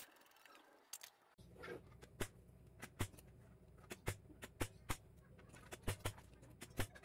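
Sharp metallic clicks of a ratchet wrench working bolts on a motorcycle engine's crankcase, a dozen or so irregularly spaced ticks, over a steady low hum that comes in about a second and a half in.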